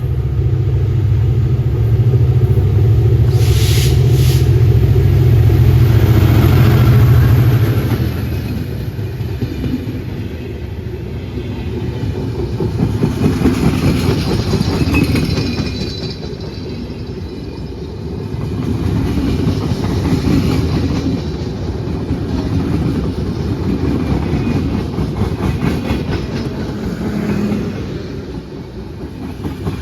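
A Bangladesh Railway express passenger train passing. A heavy low rumble lasts for about the first eight seconds, then the coaches' wheels clickety-clack over the rail joints in waves that swell and fade.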